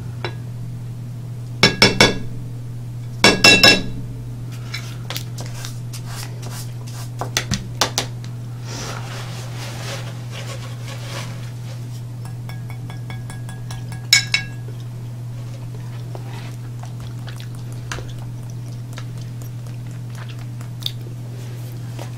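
Hard, glass-like clinks with a short ring: a few quick ones about two seconds in and again about three and a half seconds in, fainter taps around seven seconds, and a single clink about fourteen seconds in, over a steady low hum.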